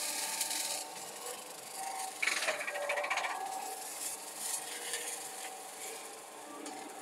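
Excavator with a brush mower attachment at work: a steady hiss with two louder rasping bursts, one at the start and one about two to three seconds in.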